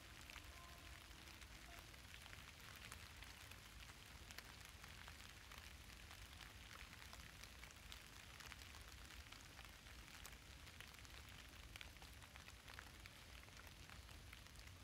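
Near silence: faint outdoor background hiss with scattered small crackling ticks and a low rumble.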